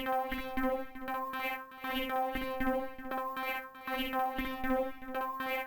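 Electronic synthesizer music: sustained pitched synth tones over a steady beat.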